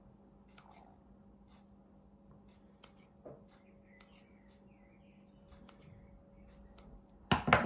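Kitchen scissors snipping notches into a small piece of soft cookie dough: scattered faint snips and blade clicks, with one brief louder knock near the end.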